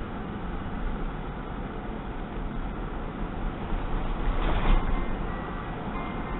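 Car interior road noise while driving: a steady low rumble of engine and tyres, with a brief louder surge of noise about four and a half seconds in.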